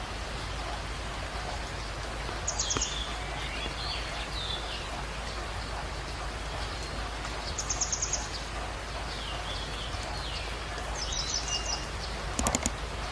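Songbirds singing over a steady hiss: a short, high, rapid trill that drops away at the end, repeated every few seconds. A quick run of sharp clicks comes near the end.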